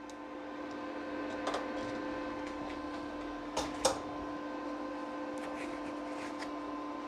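Steady hum of a switched-on MIG200 D3 inverter welding machine idling, ready to weld. A few short knocks of handling sound over it, one about one and a half seconds in and two close together about four seconds in.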